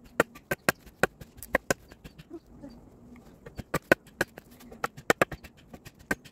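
Sickle blade chopping firewood: sharp strikes on wood coming several a second in irregular bursts, with short pauses between them.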